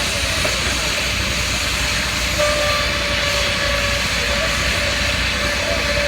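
Steady machinery noise with a low rumble, joined about two and a half seconds in by a steady, held tone.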